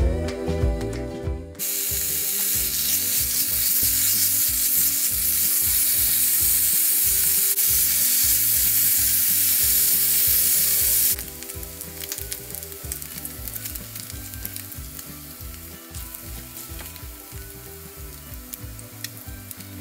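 Cubes of pork belly sizzling as they fry in hot fat in a nonstick pan. The sizzle starts loud about a second and a half in, then drops suddenly to a quieter steady sizzle a little past halfway.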